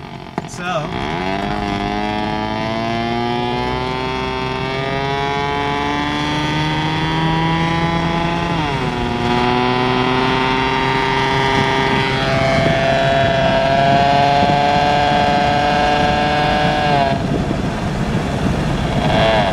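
Saturn car's engine noise picked up by the AM radio and played loudly through the car's speakers: a whine with many overtones that rises and falls with engine revs. It climbs slowly, drops suddenly about nine seconds in, climbs again and falls near the end.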